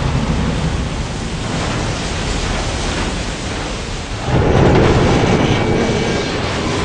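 Deep, noisy rush of a huge tsunami wave, cinematic sound effects, growing suddenly louder about four seconds in as the water crashes ashore.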